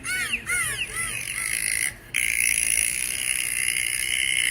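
A bird calling in a quick series of rise-and-fall notes, about three a second, fading out over the first second and a half. A steady high buzz takes over, with a brief break about two seconds in.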